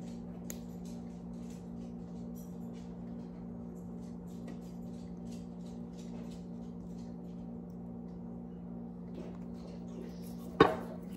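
Steady low hum with faint small clicks and taps as a small syrup bottle is handled and poured over waffles, then one sharp clack near the end.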